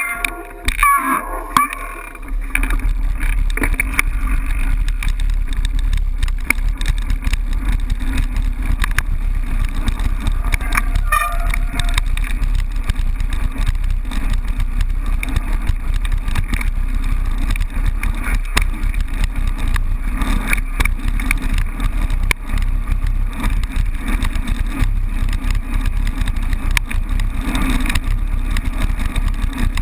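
Mountain bike rolling fast down a gravel track, picked up by a bike-mounted action camera: a steady deep wind-and-road rumble with scattered clicks and rattles of the tyres and bike over loose stones. It starts about two seconds in, after a brief voice.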